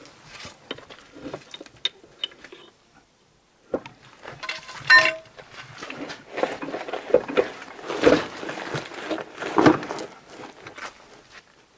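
Steel clanking, knocking and scraping as a UTB 650 tractor's wheel is worked off its hub and handled, with one ringing metal strike about five seconds in and a couple of heavier thuds near the end.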